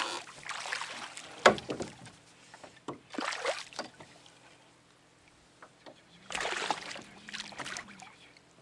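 Water slapping and sloshing against the hull of a small fishing boat in irregular bursts, with a sharp knock about a second and a half in.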